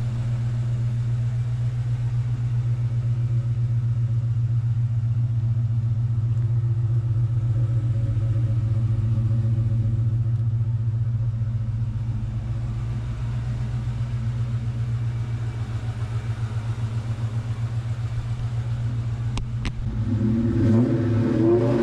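Exhaust of a 2004 Ford Mustang Mach 1's 4.6-litre four-valve V8, idling with a steady, even low pulse. Near the end the engine starts to rev.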